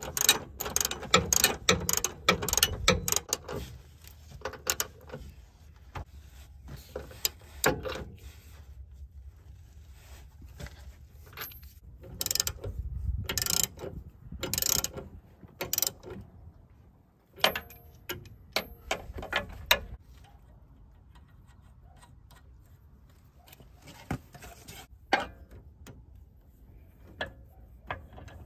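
Hand ratchet wrench clicking in quick runs of strokes as a nut is turned on a truck's steering linkage, then scattered single clicks with quieter pauses between.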